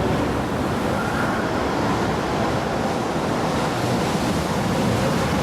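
Train running on the tracks: a loud, steady rumble with no clear rhythm.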